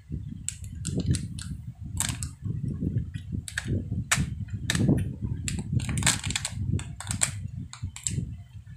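Close-up eating sounds: chewing, with irregular sharp clicks and crackles as clear plastic cups are handled at the mouth.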